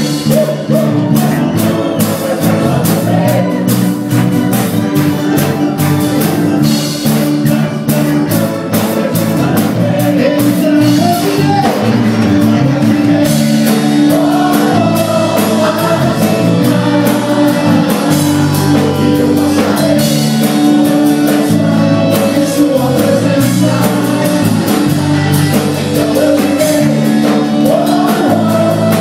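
Loud gospel praise-and-worship song: a sung melody over a bass line and a steady beat.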